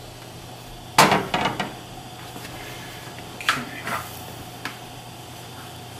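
Metal sauté pan knocking and scraping on a gas stove's grate as it is shaken and set down. There is a sharp clank about a second in with a few quick knocks after it, and more knocks around three and a half seconds, over a steady low hum.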